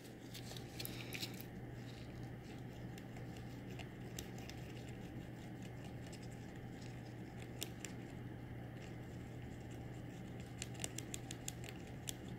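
Faint clicks and scrapes of a toothpick stirring permanent-makeup pigment in a small plastic pigment cup, clustered about a second in and again near the end, over a steady low hum.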